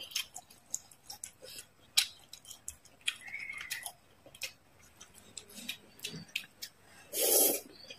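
Close-miked chewing of grilled squid: soft wet mouth clicks and smacks scattered throughout, then a louder burst of about half a second near the end as a squid tentacle is taken into the mouth.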